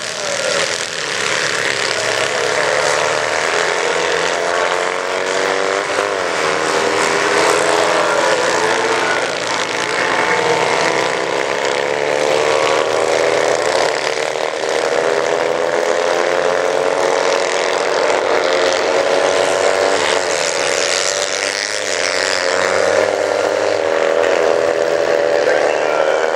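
Several karts powered by Citroën 2CV air-cooled flat-twin engines racing, their engines revving and climbing in pitch, then dropping back at each gear change, with several engines overlapping.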